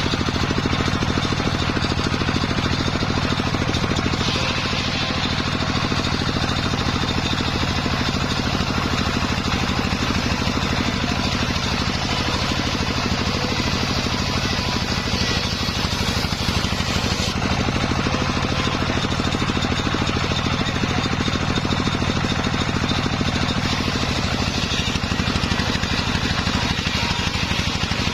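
Engine of a sawmill circular-saw rig running steadily at a constant speed.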